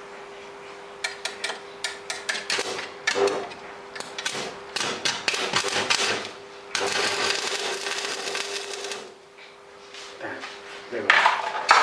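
Iron pieces knocking and clinking, then about two seconds of steady arc-welding crackle about seven seconds in, and more metal knocks near the end.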